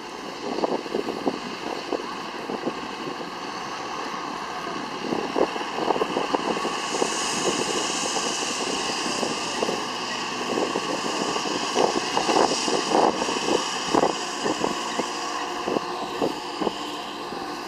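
John Deere tractor engine running steadily as it pulls a vacuum tanker spraying liquid through a splash plate. A hiss of spray grows and fades over the middle of the stretch, over irregular low thumps and rattles.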